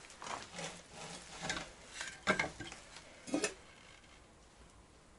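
A few sharp metallic knocks and clanks as a Minsk motorcycle engine's cases are handled and shifted during reassembly, the two loudest about two and a quarter and three and a half seconds in.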